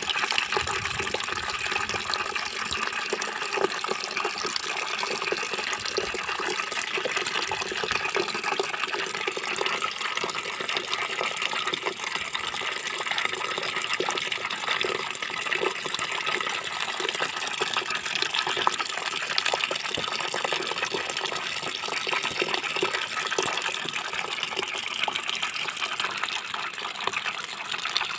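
A steady stream of water pouring into a metal bucket full of mushrooms, filling it with water.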